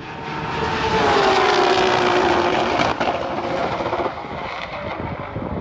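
Roll-racing cars passing at full throttle at high speed: the engine note grows loud, then drops steadily in pitch as they go by. It cuts off abruptly about three seconds in, and a quieter engine and wind sound follows.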